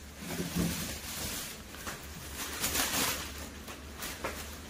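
Clear plastic wrapping rustling and crinkling in irregular bursts as it is pulled back from a white HDMR wall-panel sheet.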